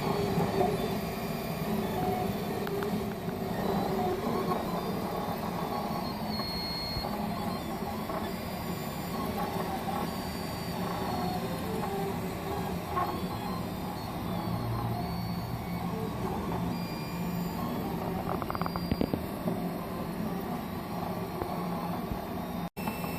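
Markforged 3D printer running as it prints a carbon-fibre and nylon part: a steady mechanical hum with short whining tones that change pitch as the print head moves.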